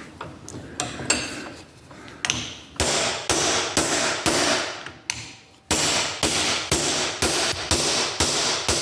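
Hammer blows driving a new hinge pin into a Jeep Liberty door hinge, with sharp metal strikes ringing briefly. Lighter taps come first, then heavier blows from about three seconds in, at about two a second.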